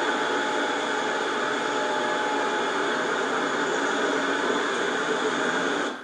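Steady noise of model trains running on a large model railroad layout.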